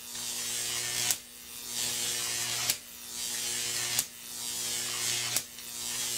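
Glitch-style title sound effect: a steady electric hum under static hiss that swells and then cuts off with a sharp click, four times.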